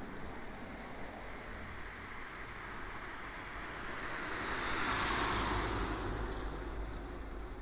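Road traffic noise, with one vehicle passing that swells to its loudest about five seconds in and then fades.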